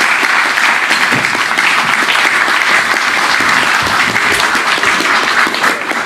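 Audience applauding steadily after a song, the clapping beginning to die away near the end.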